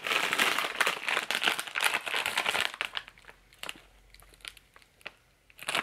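A snack-mix bag crinkling as it is handled, in a dense run of crackles for the first two and a half seconds, then a few scattered crackles, and crinkling again near the end.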